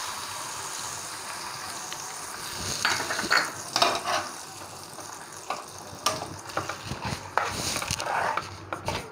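Hot tempering oil with mustard seeds sizzling steadily for the first couple of seconds. Then a spoon scrapes and stirs the sesame–tomato thokku in its pan, with short irregular scrapes and clinks.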